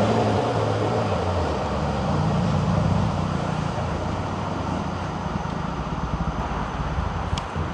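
Gothenburg M31 tram moving off along the track away from the stop, its wheels and running gear giving a low rumble that slowly fades as it draws away.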